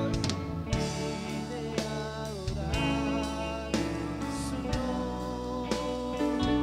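Live band playing a worship song: drum kit, electric guitar and keyboard, with steady drum hits over held notes.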